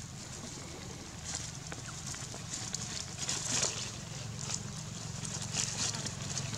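Outdoor ambience with a steady low hum and scattered soft rustles and crackles, from long-tailed macaques moving about and handling food and leaves on a gravel road.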